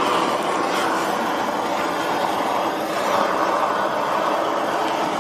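Gas torch burning with a steady hiss, heating a copper pot so that the tin inside melts for hand tinning.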